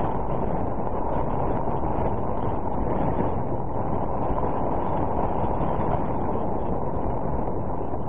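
Wind blowing across the microphone: a steady, low rushing noise that does not let up.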